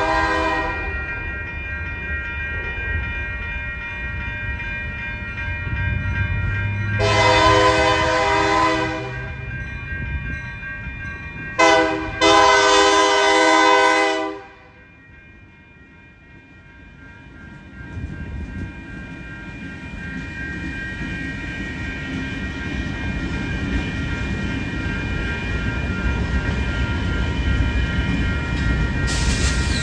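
Union Pacific freight locomotive's air horn sounding for the grade crossing: the end of one blast, then a long blast, a short one and a long one, over crossing bells ringing steadily. The train's low rumble then grows as the freight cars roll through the crossing.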